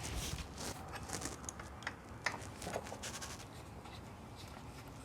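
Faint scattered clicks and light scrapes of a hand tool working on a bicycle's brake hardware, loosening the brake.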